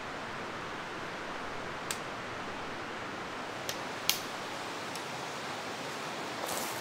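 Steady rushing of a valley stream. Three short sharp clicks sound over it, the loudest a little past halfway.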